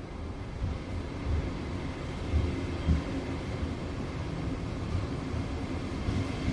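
Train running on the rails: a steady low rumble with irregular low thumps, growing slightly louder after the first second.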